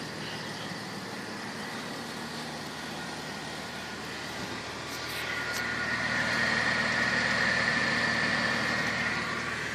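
1997 Ford Falcon EL idling on a cold start, with a steady high-pitched whistle of unknown origin that grows much louder about halfway through. A couple of light clicks come near the middle.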